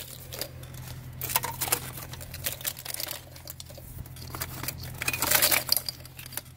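Close handling noise: scattered clicks, rattles and crinkling of plastic and wiring being worked, louder for a moment about five seconds in, over a steady low hum.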